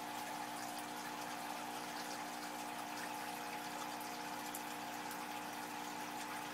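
Aquarium aeration: streams of air bubbles rising and breaking at the water surface, a steady bubbling fizz, with a steady hum beneath.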